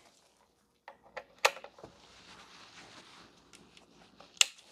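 A few sharp clicks and knocks from handling the Xeltek Superpro 7000 chip programmer as it is powered up. The loudest come about a second and a half in and just before the end, with faint hiss between them.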